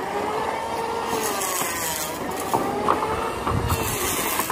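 A motor running steadily with a slowly wavering whine, with a few light knocks partway through.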